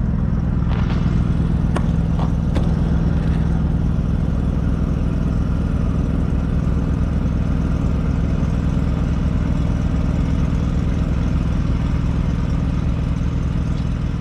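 An engine running at a steady speed, an even low drone with a steady hum, with a few faint clicks in the first few seconds.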